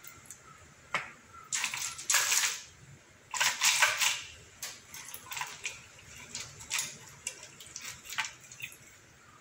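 Wet gonggong conch shells clattering and grinding against each other inside a mesh net bag as a hand rummages through them. The sound comes in two loud bouts, about two and four seconds in, then scattered single clicks as shells are picked out and set down.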